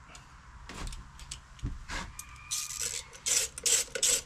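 A few light metal tool clinks, then a hand ratchet clicking in quick, even strokes, about two or three a second, as a bolt on a scooter's transmission gear case is turned.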